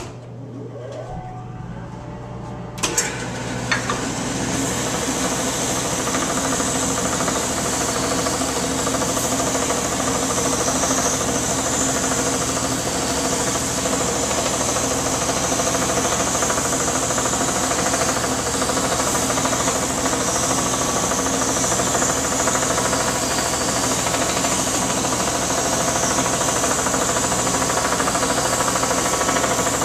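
Delta vertical belt sander switched on, its motor whining up to speed, then running steadily. A laminated wood disc is held against the belt and sanded to a scribed circle, giving a loud, even rushing grind from about three seconds in. A dust collection system runs along with it.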